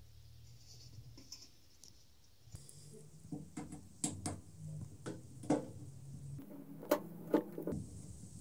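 Irregular light clicks and taps of tools and parts being handled, with the sharpest clicks in the second half over a low steady hum.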